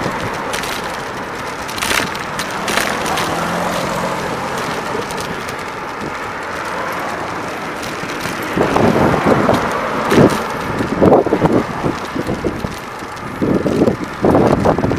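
Road and traffic noise heard from a moving bicycle: a car passes close alongside at first, its engine a faint low hum, then from about halfway uneven rumbling gusts buffet the microphone.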